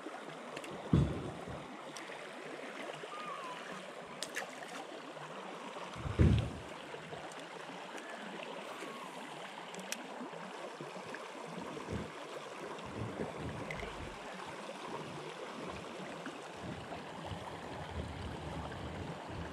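Shallow creek water running steadily over rocks, with two low thumps about one second and six seconds in.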